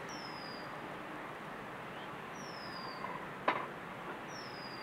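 Steady outdoor background noise. A bird gives a short, high whistle that falls in pitch, three times about two seconds apart. One sharp knock sounds about three and a half seconds in, the loudest moment.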